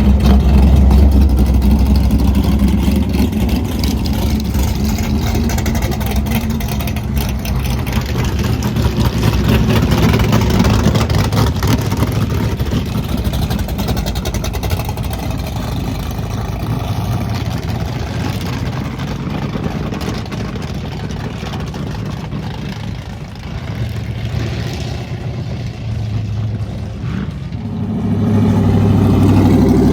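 Drag-racing car engines running loud, with the pitch shifting in steps, then swelling again near the end.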